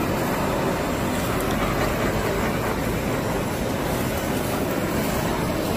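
Handheld gas blowtorch flame running steadily as it chars octopus and conch on a griddle.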